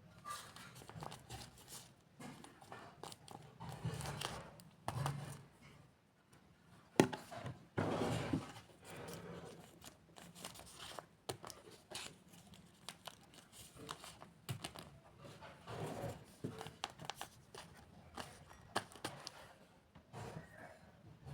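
Paper being handled and crinkled in crafting, with scattered light taps and clicks and a sharp knock about seven seconds in.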